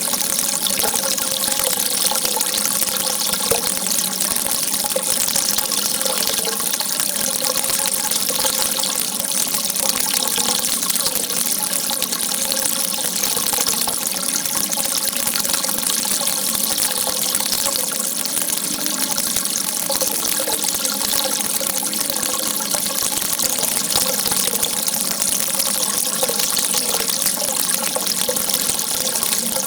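Water rushing in a steady, unbroken stream.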